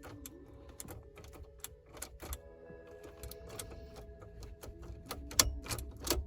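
Irregular small metallic clicks and rattles as a Saturn SL1's ignition lock cylinder is twisted and pulled out of its housing with an Allen key holding down the release tab, with a sharper click about five and a half seconds in.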